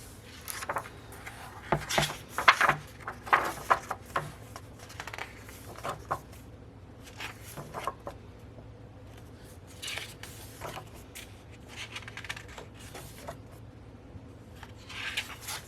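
A CD album package being handled and opened by hand: irregular scrapes, rubs and light clicks, busiest in the first few seconds.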